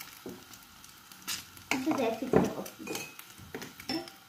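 Egg-soaked bread frying in a pan with a light sizzle, with a spoon stirring and clinking in a glass jar and a few sharp cutlery clicks. A child's voice is heard briefly about halfway through.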